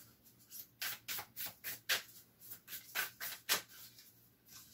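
Deck of oracle cards being shuffled by hand: a quick run of about a dozen short papery swishes over some three seconds.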